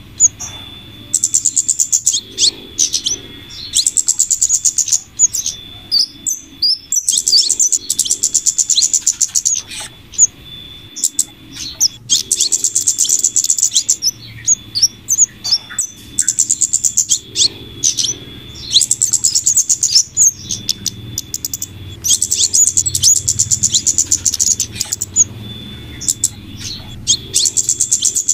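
Looped bird-lure recording of flowerpecker and female scarlet minivet calls: very high, rapid trills of about a second or so each, repeating every two to three seconds, with short sharp chirps in between.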